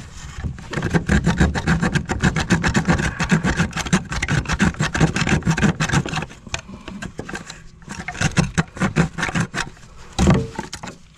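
Hand saw cutting through a buried plastic drain pipe with rapid back-and-forth strokes, pausing briefly a little past halfway before more strokes, then a louder knock near the end.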